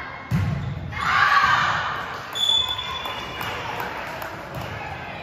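Volleyball play in a gym with a hall echo: a ball struck with a thump, followed by shouting voices and a short high whistle.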